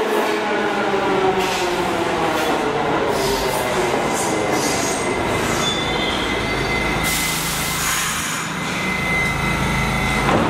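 Westinghouse-Amrail R68 subway train braking into a station: a whine of several tones falling in pitch as it slows over the first six seconds. A hiss of about a second follows as it comes to a stop, and a sharp knock comes at the very end.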